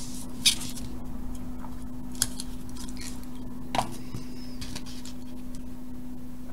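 A few light clicks and taps from a small circuit board and parts being handled and set down on a workbench, three sharp ones in the first four seconds, the first the loudest, over a steady hum.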